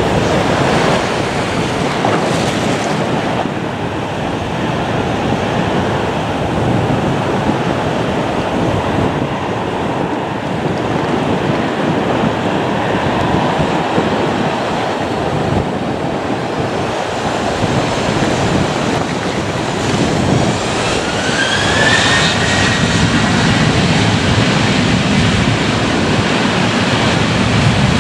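Aircraft jet engines: a steady rushing roar, with a whine that rises in pitch about twenty seconds in and a deeper rumble building near the end.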